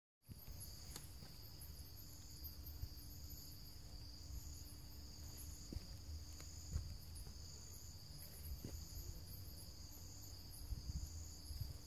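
Night insects trilling: a steady high-pitched trill, with a second, higher trill that comes and goes about once a second. A low rumble and a few soft knocks sit under it, the sharpest about two thirds of the way in.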